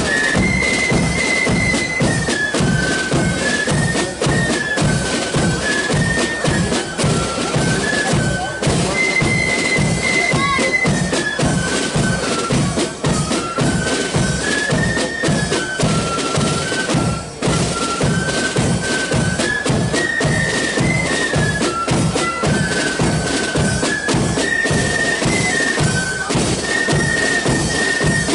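Marching flute band playing a tune: flutes in unison carrying a stepping melody over a steady marching beat of drums.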